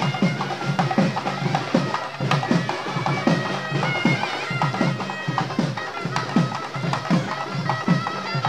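Traditional Tamil temple-festival band music: a reed wind instrument playing a melody over drums beating about twice a second, each stroke dropping in pitch.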